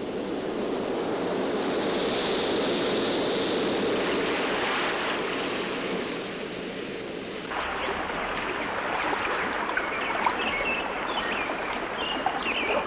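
Water churning and splashing, a dense rushing sound. About seven and a half seconds in it changes abruptly to a thinner water sound with small scattered ticks.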